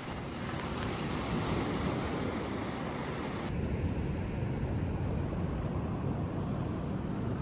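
Pacific Ocean surf washing on the beach, mixed with wind buffeting the microphone: a steady, even rush. About halfway through, the higher hiss drops away abruptly and a low rumble remains.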